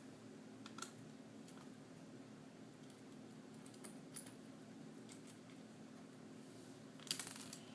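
Faint, sparse clicks of a small Phillips screwdriver turning a laptop screen-bezel screw, with a short cluster of small metallic clicks near the end, over a faint steady hum.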